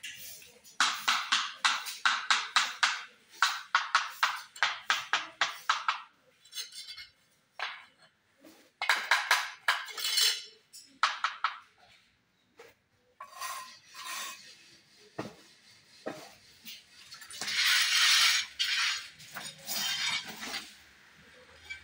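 Steel trowel scraping and tapping mortar against ceramic skirting tiles. A quick, even run of strokes comes first, about four a second, then shorter spells and a longer scrape near the end.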